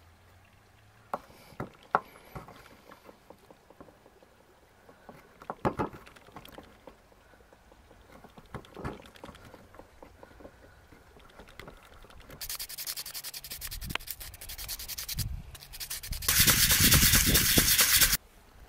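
Sandpaper rubbed by hand over a small wooden pendant, in two spells: a rougher scraping about two-thirds of the way in, then a louder steady rasp for about two seconds that stops sharply near the end. Earlier come a few light clicks and taps of hand tools on the wood.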